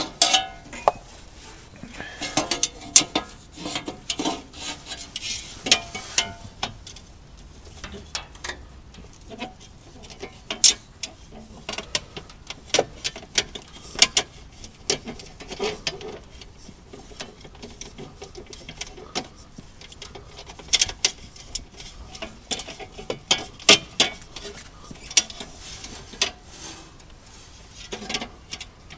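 A thin metal LAILE under-panel plate being handled and fitted against the car's underside: irregular clicks, taps and light metallic knocks, in clusters with short gaps between them.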